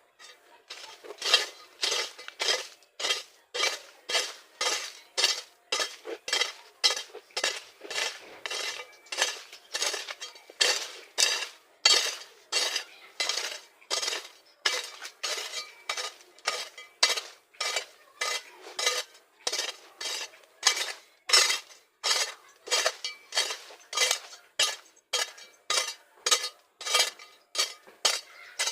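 Rhythmic scraping strokes of a small metal hand tool working through soil while weeding, about two strokes a second.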